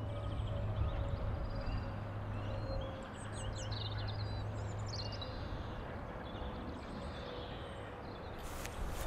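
Outdoor ambience: small birds chirping in short, scattered calls over a steady background of noise and low hum, with a few sharp knocks near the end.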